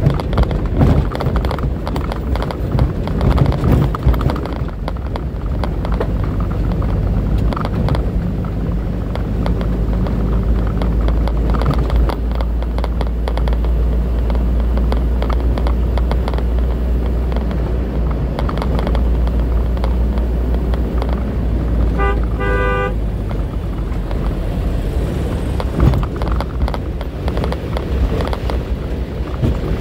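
Truck engine running and tyre and road noise heard from inside the cab while driving, with a short, stuttering blast of a vehicle horn about 22 seconds in.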